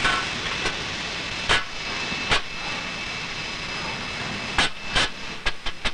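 Steady din of newspaper printing-press machinery, broken by several sharp knocks that come closer together near the end, as lead plates are handled on the press cylinders.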